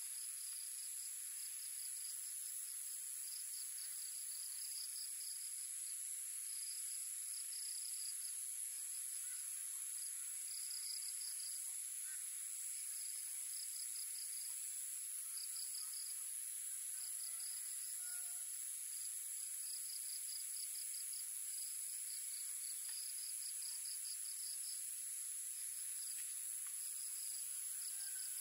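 Insect chorus, crickets among them: a steady high-pitched drone with short trains of rapid chirps repeating every second or so.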